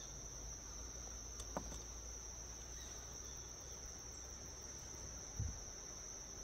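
Steady, high-pitched insect chorus droning without a break, with a faint click about one and a half seconds in and a short low thump about five seconds in.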